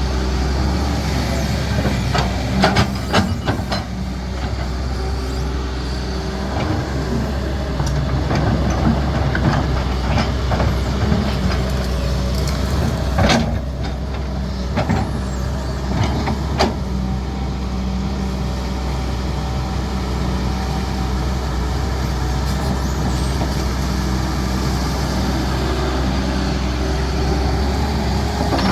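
Diesel engine of a CAT 320D excavator running steadily at working revs, with a few sharp knocks and clanks along the way.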